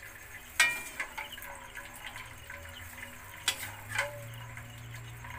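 Metal mesh strainer of boiled sweet corn knocking and clinking against a stainless steel bowl a few times, the sharpest clink about half a second in, as cooking water drips and trickles into the bowl.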